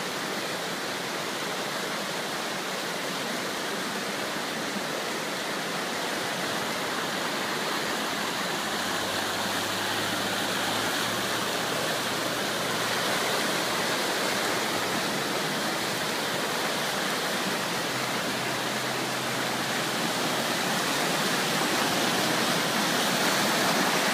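Water rushing steadily down a sloping rock face in a small waterfall cascade, growing gradually louder.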